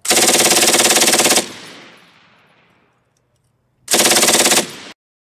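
Browning Mark II .303 aircraft machine gun firing full-auto with Wolf .303 British ammunition: a rapid burst of about a second and a half with echo dying away after it, then a shorter burst of under a second, cut off abruptly.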